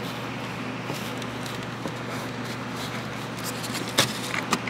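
Plastic front grille being worked loose by hand: light scraping and faint ticks, then a sharp click about four seconds in as the locking tab gives, with a few smaller clicks near the end. A steady low hum runs underneath.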